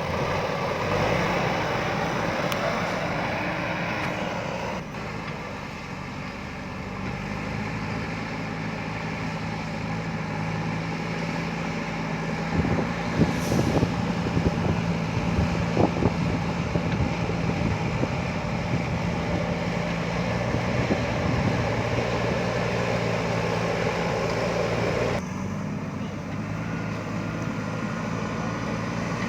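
JCB backhoe loader's diesel engine running steadily, with a cluster of sharp knocks and clanks about halfway through.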